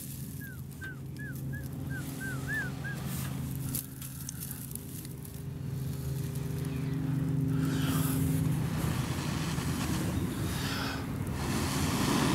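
Breaths blown into a smouldering straw tinder bundle with a char-cloth ember: soft rushes of air that grow louder in the second half as the bundle nears flame, over a steady low hum. A run of short high chirps sounds in the first three seconds.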